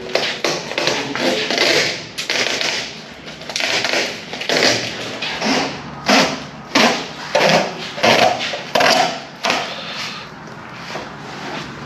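Irregular knocks, clatter and scraping noises, coming in uneven bursts throughout.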